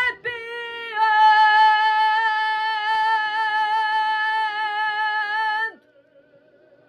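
A woman singing one long held note with a slight vibrato, ending sharply about six seconds in, after a short note just before it.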